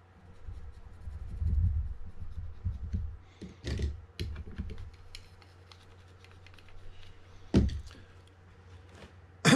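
Handling noise and irregular small clicks and taps of a spinning-reel spool and small tools being worked on a bench, with two sharper knocks, one about a third of the way in and one near the end.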